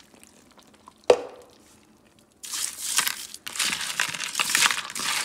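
Crushed ice being stirred by hand through blanched potato sticks in a plastic colander, chilling them to stop the cooking: a dense, continuous crunching and rattling of ice that starts abruptly about two and a half seconds in. A single sharp knock comes about a second in.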